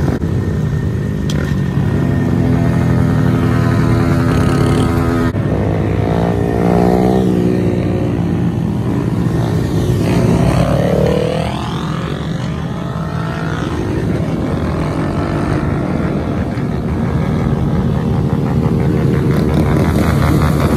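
Several small motorcycles, Honda Grom mini bikes among them, running and revving as a group rides by. Their engine pitch rises and falls as bikes pass close.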